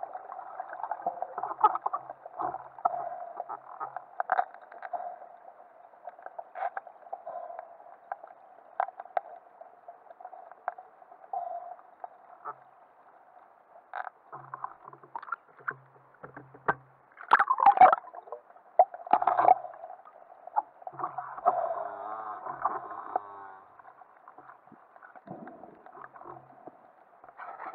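Muffled underwater sound picked up through a camera's waterproof housing: water moving and bubbling, with scattered irregular clicks and knocks, and louder bursts of splashing a little past halfway.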